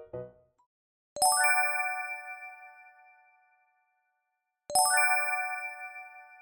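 A bright bell-like chime sounding twice, about three and a half seconds apart, each strike ringing with several tones and fading away over a couple of seconds. A tail of music cuts off just before the first chime.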